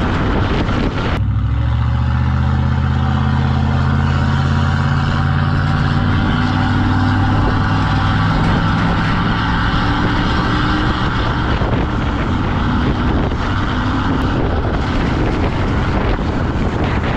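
Pickup truck towing a trailer on the road: engine running steadily with road and wind noise. The wind hiss eases and the low engine hum comes up plainly about a second in, its pitch sinking slowly as the truck eases off.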